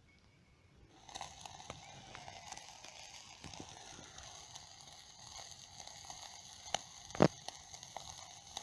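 Small wood fire crackling in a home-made stove made from a mini bucket with holes punched in it. A steady hiss starts about a second in, with scattered sharp pops; the loudest pop comes about seven seconds in.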